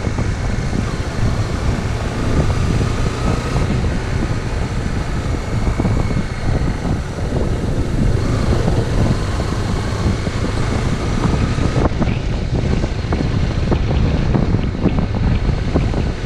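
Wind buffeting the microphone on a moving motorcycle, with the Zontes X1 350's single-cylinder engine running steadily underneath.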